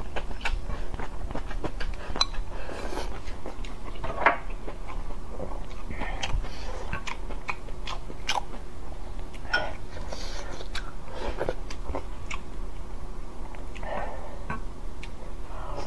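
Close-miked eating of stewed sour cabbage and bone-in meat: a run of wet chewing and biting clicks, with a few soft slurps from the plate and spoon. The sharpest click comes about four seconds in.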